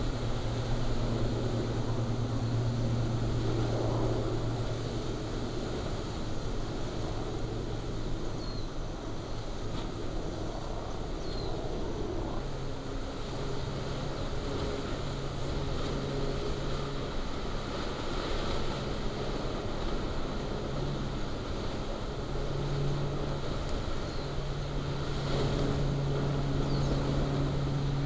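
Kilauea fissure lava fountain erupting: a steady, deep rushing noise of gas and lava jetting out, with a low hum underneath that comes and goes and shifts in pitch.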